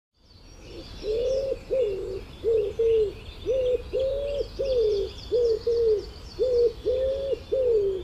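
Common wood pigeon singing: low cooing notes in a repeating phrase, each phrase with a long coo, a falling coo and two short ones. Small birds chirp faintly and more high-pitched behind it.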